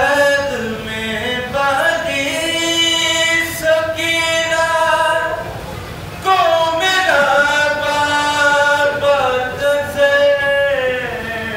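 A man's solo voice, unaccompanied, chanting a mournful lament. It comes in two long drawn-out melodic phrases: the first ends about five seconds in, and the second starts about a second later.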